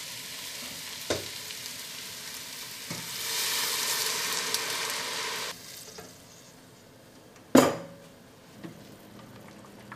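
Vegetables and chicken sizzling in butter in a stainless steel stockpot, then chicken stock poured in from a second pot: a louder rush of about two and a half seconds that stops suddenly, after which the pot is much quieter. About two seconds later comes a single sharp knock, the loudest sound.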